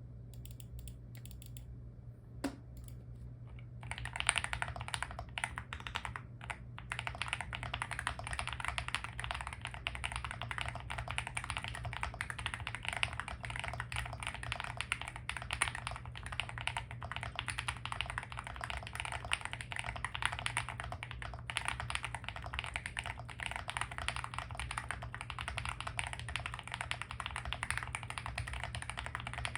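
Continuous fast typing on a Weikav Record 65% mechanical keyboard with lubed and filmed Gateron Baby Kangaroo tactile switches, a polycarbonate plate, full foam and polycarbonate Cherry-profile keycaps. A single keystroke comes first, and steady rapid typing begins about four seconds in.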